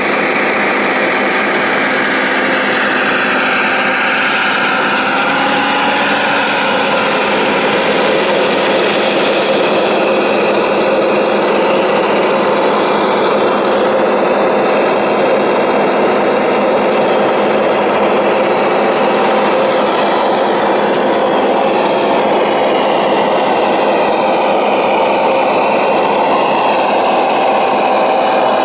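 Hydraulic pump and motors of a radio-controlled Liebherr R970 SME excavator model running steadily as the grapple and boom work. A whine slides down in pitch a few seconds in and wavers up and down near the end.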